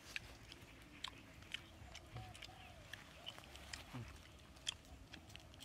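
Faint chewing with a scatter of small sharp clicks: a fire-roasted goose egg being peeled and eaten.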